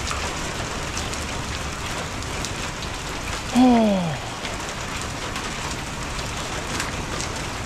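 Steady rain mixed with pea-sized hail falling on a wet driveway and parked vans, an even hiss scattered with sharp ticks of hailstones striking. About three and a half seconds in, a person's voice gives a short falling hum.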